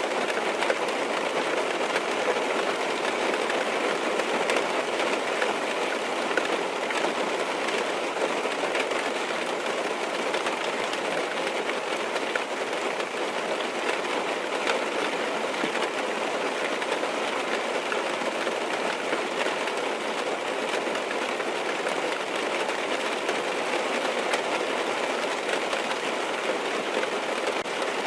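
Rain falling on a car's roof and windows, heard from inside the car: a steady, dense patter of fine drop ticks that keeps an even level throughout.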